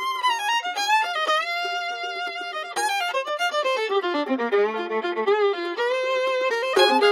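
Fiddle music: a fiddle playing a quick tune with slides between notes over a held lower note, with more instruments coming in near the end.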